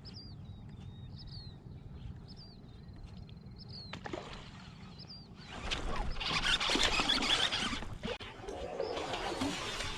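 A small bird calling repeatedly with short, curved chirps for the first five seconds or so, over a low, steady rumble. From about five and a half seconds in, a much louder rushing noise takes over and drowns the bird out.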